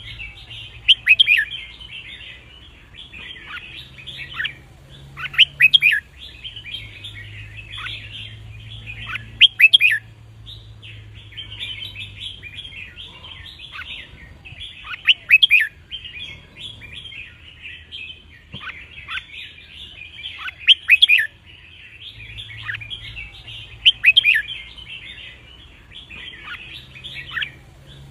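Red-whiskered bulbul song: loud short phrases every few seconds over a continuous busy chatter of calls.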